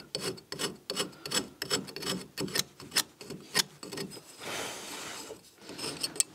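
A hand tool scraping out a shallow groove in the top of a cellular (aerated) concrete block: a quick run of short rasping strokes, about three a second, with one longer scrape about halfway through. The groove lets the metal wall-tie hook sit low enough for the glue.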